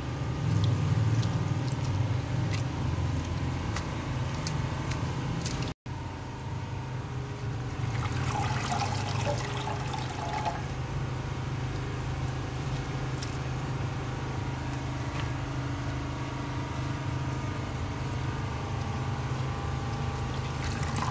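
Hands swishing chopped spinach in a pot of water and lifting handfuls out, water trickling and dripping back into the pot, over a steady low hum. The sound cuts out for an instant about six seconds in.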